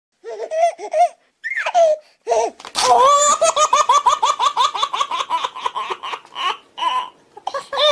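High-pitched laughter: a few short laughs, then from about three seconds in a long run of quick ha-ha pulses, about six a second, thinning out near the end.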